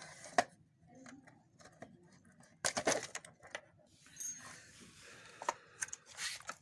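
Scattered sharp clicks and light metallic clinks, with a quick cluster about two and a half seconds in, as the spring-loaded side locks of a photocopier's scanner unit are worked out with their springs.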